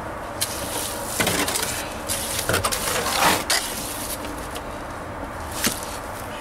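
Steel trowel scraping through and slapping down wet Portland cement mortar on a concrete slab: a few separate scrapes and knocks, spaced out, over a steady background noise.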